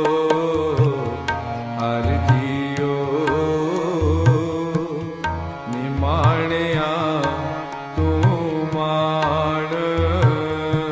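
Gurbani shabad kirtan music: tabla strokes keeping a steady rhythm under a wordless sung or played melody of held notes that waver, with a sweeping rise about six seconds in.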